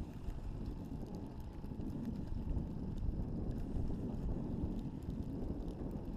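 Wind buffeting the microphone, a steady low rumble, over the noise of a boat on open water.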